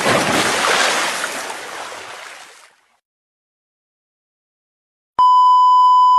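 A splash into water, its hiss fading away over about three seconds, then silence. Near the end a steady electronic beep sounds for about a second.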